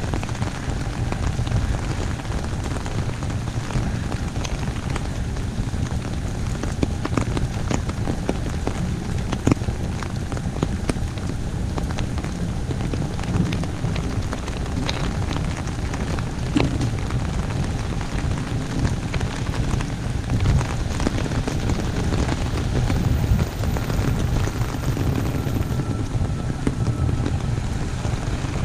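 Heavy, steady rain falling on an umbrella: a dense patter with many individual drops ticking sharply on the canopy.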